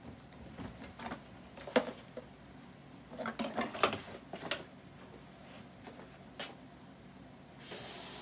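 Disposable aluminum foil pan being picked up and handled: crinkling and knocking in sharp clatters, the busiest run about three to four and a half seconds in. A short hiss near the end.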